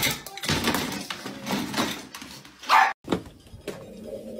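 A dog pulling at the wire door of a plastic pet carrier, rattling and clattering it, with one short loud sound near the end of the clatter. After a brief cut it goes quieter, with a faint steady hum.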